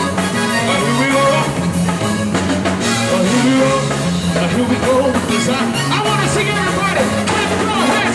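A live zydeco band plays an instrumental passage: drums, a bass line stepping through a repeating pattern, and melody lines on top.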